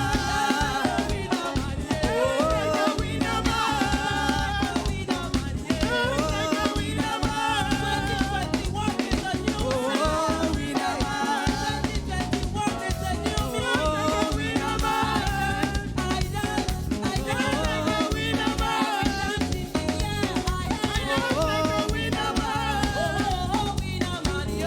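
Live gospel praise-and-worship music: singing over a band with drum kit and a steady beat.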